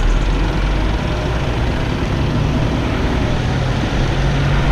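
Wind rumbling on the microphone over a running vehicle engine, with a low steady engine hum in the second half.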